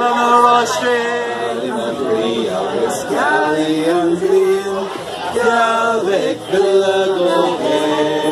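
A group of people singing a song together, unaccompanied, with long held notes.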